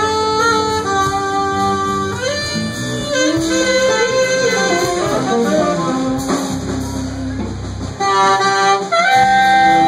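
Live jazz band playing: a saxophone carries the melody in sustained notes over electric guitar, electric bass and drum kit.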